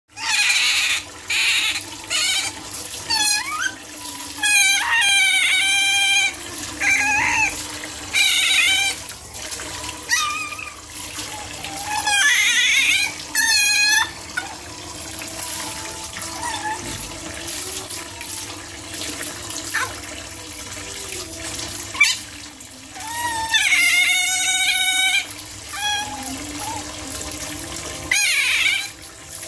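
Young otters splashing in a tub under a running tap, breaking out several times into high-pitched, wavering squealing calls lasting a second or two each.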